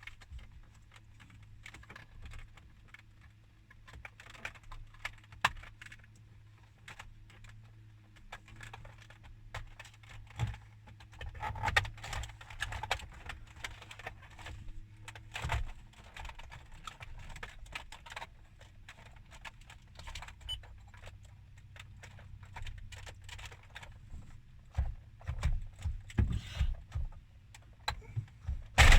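Small plastic clicks and rattles from dashboard trim and wiring connectors being handled and pushed into place, over a steady low hum, with a sharp louder click at the very end.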